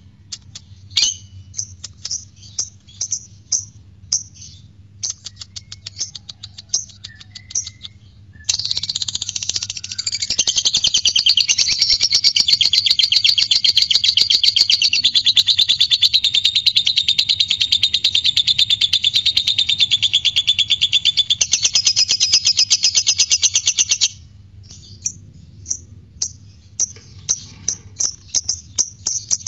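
Lovebird calling: separate sharp chirps, then about eight seconds in a long, rapid, unbroken chatter, the 'ngekek' song. The chatter runs about fifteen seconds and stops abruptly, followed by more separate chirps.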